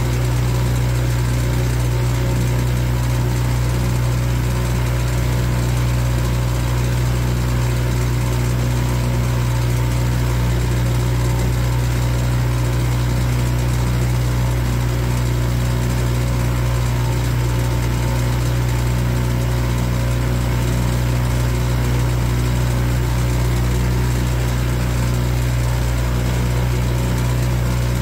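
Boat engine running at a steady speed, an even drone that holds one pitch without revving up or down.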